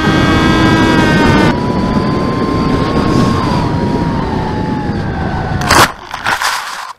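Electric motor and propeller of a Teksumo RC plane whining steadily over rushing air. The whine thins out about a second and a half in as the throttle comes back, then slowly falls in pitch as the plane glides down. Near the end comes a sharp impact as the plane hits the ground on landing, followed by brief scraping.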